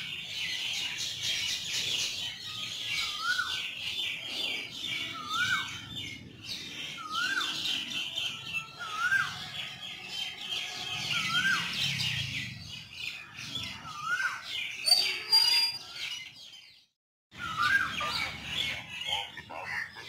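A chorus of birds chirping and chattering, with one bird repeating a short rising call that drops off at the end, about every two seconds. The sound briefly cuts out near the end.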